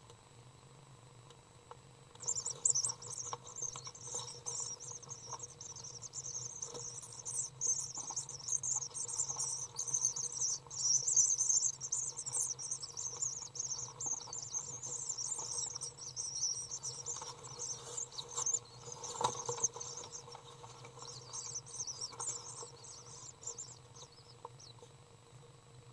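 Swiftlet chick giving rapid, high-pitched chittering calls as its parent feeds it. The calls start about two seconds in and break off briefly near the end. It is the chick's feeding call, a signal to the parent because its eyesight is not yet developed enough.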